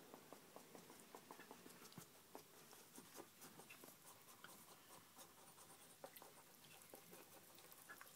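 Faint splashing and dripping of shallow water as a hedgehog is washed by hand, with many small scattered clicks.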